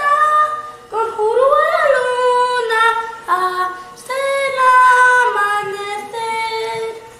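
A female voice singing a slow melody unaccompanied, in four phrases of long held notes with slides between them, over a faint steady tone.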